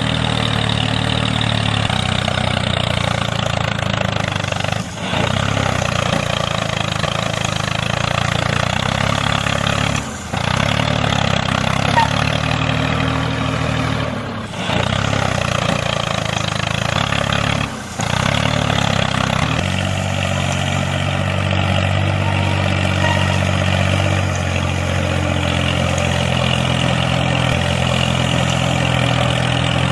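Steady engine-like drone of a tractor running, dropping out briefly four times and settling into a steadier note about two-thirds of the way through.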